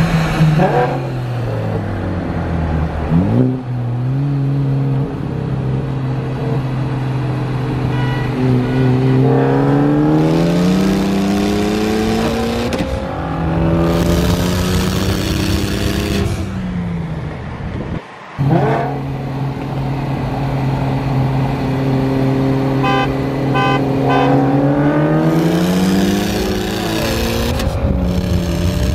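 Car engines and exhausts running at rolling speed: a steady drone that climbs in pitch each time the cars accelerate, several times over, with a short break about 18 seconds in.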